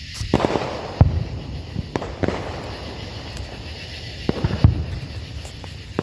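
Consumer fireworks going off: crackling pops followed by a series of sharp bangs. The loudest bangs come about a second in and again about three-quarters of the way through.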